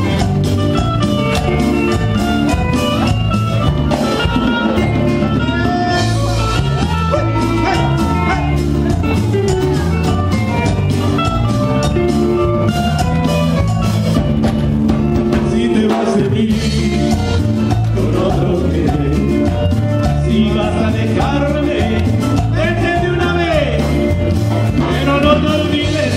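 Live band playing Latin American dance music with a singer over a steady beat, loud through the hall's PA.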